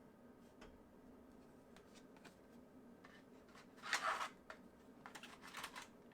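Handling noise: a few soft clicks, then a louder rustle about four seconds in and a short run of crackly rustles after five seconds, as of hands moving a small knife and its packaging.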